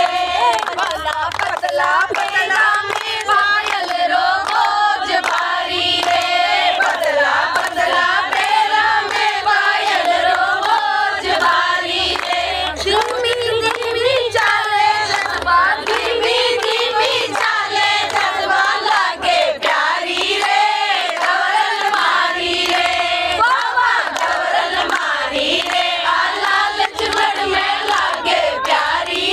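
A group of women singing a Rajasthani Gangaur folk song together, clapping their hands along with it.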